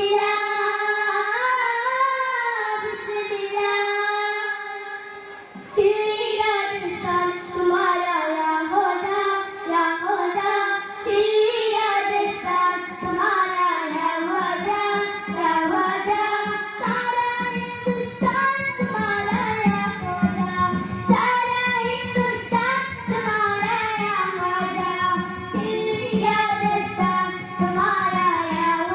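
Children singing a qawwali into handheld microphones. The voices carry a winding melody, and a steady low drone joins about halfway through.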